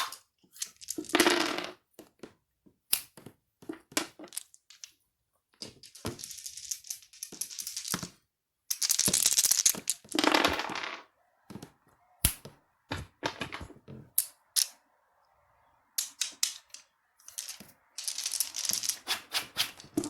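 Dice being shaken and rolled: several spells of rattling as they are shaken, and sharp clacks as they are thrown and land, some in quick runs as they tumble.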